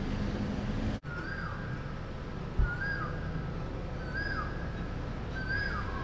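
A bird calling over the steady hum of city traffic: a whistled note repeated four times, about every second and a half, each one held and then dipping in pitch. A single low thump comes about two and a half seconds in.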